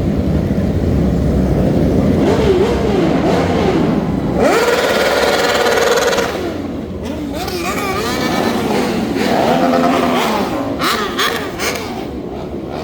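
Several motorcycles running and revving, the engine pitch rising and falling again and again as they ride past. A deep rumble gives way to a higher, brighter engine note about halfway through.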